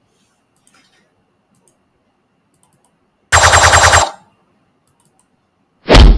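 A rapid rattle of about ten sharp strikes in under a second, then a heavy, bass-heavy thud near the end: sound effects for a kung fu fight scene played back in an editor.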